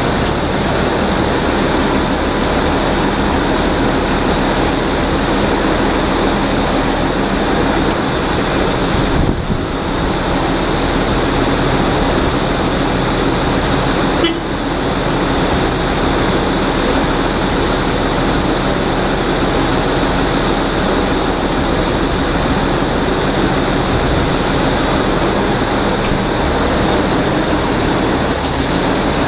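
Steady, loud machine drone of a pushback tug coupled to an Airbus A330, with a constant high whine through it. The sound dips briefly about nine and a half seconds in, and a small click comes about fourteen seconds in.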